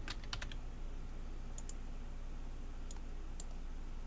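A quick run of computer keyboard keystrokes, then a few isolated clicks spaced a second or more apart, over a low steady hum.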